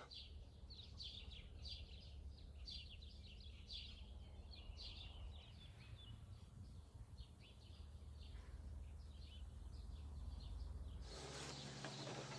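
Birds chirping in many short, quick calls over a faint low rumble. Near the end the chirping gives way to a steady hiss and hum.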